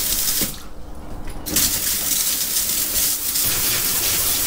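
Water from a hosepipe pouring and splashing into a boat's bilge, at good pressure. The flow breaks off for about a second near the start, then runs on steadily.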